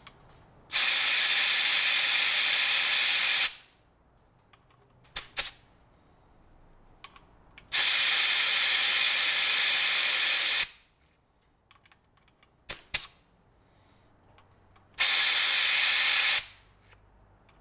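Air hissing through an air hose chuck held on a car tire's valve stem, in three bursts (two of about three seconds, a last shorter one), with short clicks between them as the chuck is taken off and put back while the tire pressure is adjusted.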